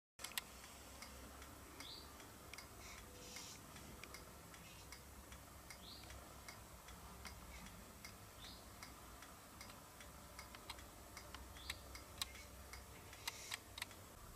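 Faint room tone with a steady low hum, scattered with soft irregular clicks and ticks and a few brief high chirps.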